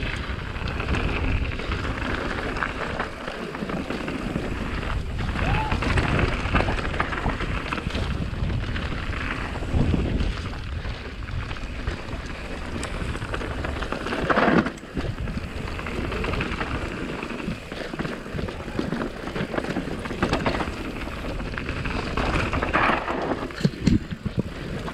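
Full-suspension mountain bike riding fast downhill on a dirt trail, with steady wind rush on the microphone and the tyres and frame rattling over the rough ground. A few sharper knocks stand out where the bike hits bumps, the loudest about midway.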